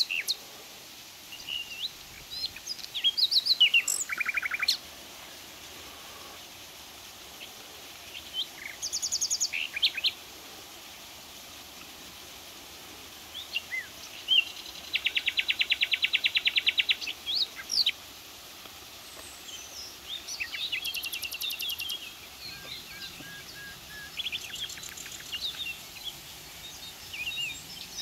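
Small wild birds singing and calling: short chirps and whistles throughout, with fast rattling trills about three, nine, fifteen and twenty-one seconds in, the longest near fifteen seconds. Beneath them is a faint steady outdoor hiss.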